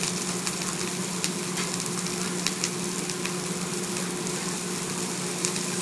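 Fried rice sizzling on a hibachi steel griddle, with scattered sharp clicks of a metal spatula tapping and scraping the griddle as the chef turns the rice. A steady low hum runs underneath.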